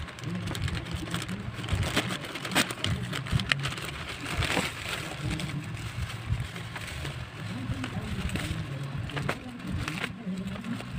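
Plastic courier mailer and bubble wrap crinkling and rustling as hands tear open and unwrap a parcel, with many sharp little crackles.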